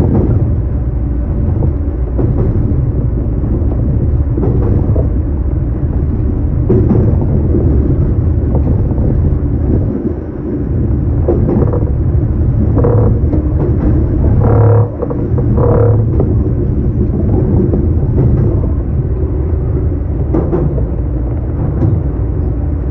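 A JR Kyushu BEC819 series battery-electric train running along the line, heard from inside at the front: a steady rumble of wheels on the rails, with a few brief higher tones a little past the middle.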